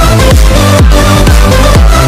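Loud electronic dance music with a steady beat, its deep bass notes sweeping downward about twice a second.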